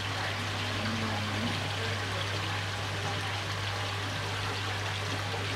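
Steady rush of running water in a koi holding tub, with a low steady hum underneath.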